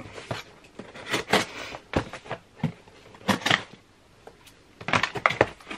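A parcel being opened by hand: its packaging is handled and pulled open in irregular crackles and clicks, busiest about a second and a half, three and a half and five seconds in, with a short lull about four seconds in.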